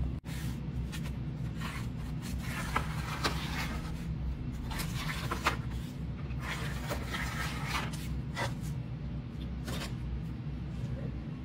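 Cardboard circle template and a marking tool scraping and rubbing on asphalt roof shingles as a circle is traced around it, in irregular scratchy strokes over a steady low hum.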